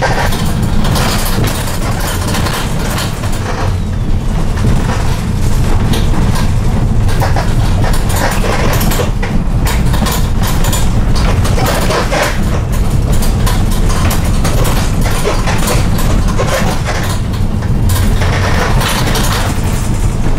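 Cabin of a Dietrich City 21 minibus on a Fiat Ducato base driven fast over rough, broken streets: a loud, steady low rumble of engine and road, with constant creaking and rattling of the plastic interior panels and seats. The creaks come from a worn, unreliable minibus shaken by the bad road surface.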